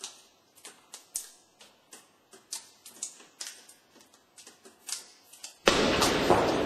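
Sharp, irregular clicks like typewriter keys, about two a second. About five and a half seconds in, a much louder, dense noise cuts in suddenly and holds.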